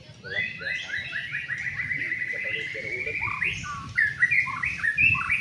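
White-rumped shama (murai batu) singing: a rapid string of short rising notes for the first few seconds, then a varied phrase of sharp rising and falling whistled notes.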